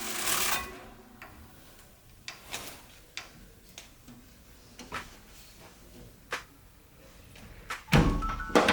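Household knocking sounds: a hissing noise cuts off half a second in, then scattered light clicks and knocks, and a loud thump near the end.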